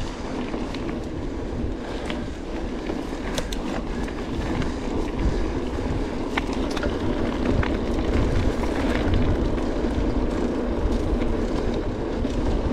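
Mountain bike rolling over a rough gravel and dirt track: a steady rumble of the tyres on the stones, with scattered sharp clicks and rattles from the bike.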